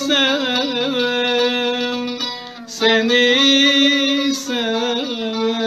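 A man singing a slow Turkish song in long held, wavering notes, accompanied by a plucked string instrument; the notes break briefly near the middle.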